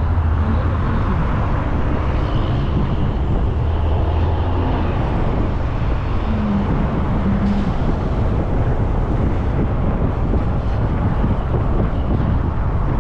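Steady road noise of a car driving at speed, heard from inside the cabin: tyre and engine rumble with a low drone that eases after about five seconds.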